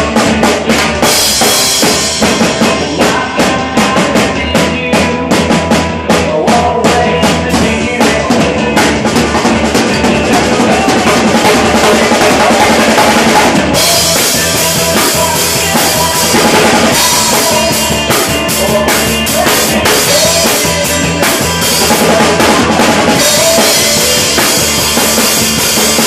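Drum kit played in a driving rock beat on snare, bass drum and cymbals. Sharp, quick hits fill the first half; from about halfway the cymbals ring on in a bright, continuous wash.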